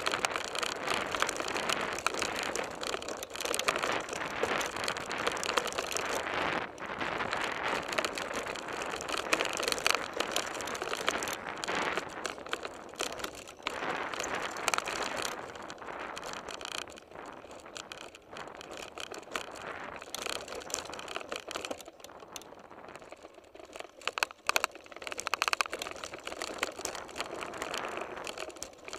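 Mountain bike ridden over a dirt and gravel track: the tyres crunch over the ground and the bike clatters and rattles without a break, with a stretch past the middle where it eases off a little.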